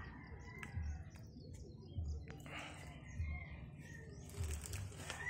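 Small birds chirping in the background, with two bursts of rustling from grass and loose soil as hands dig out a planting hole, one about two seconds in and a longer one near the end.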